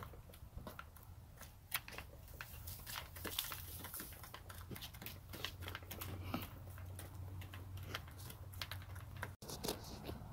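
Hens pecking at feed in a plastic feeder and in the litter: many quick, irregular taps and clicks.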